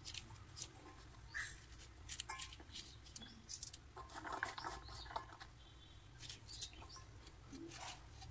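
Knife slicing okra pods into small rounds over a stainless steel bowl: faint, irregular clicks and taps as the blade cuts through and the pieces drop into the bowl.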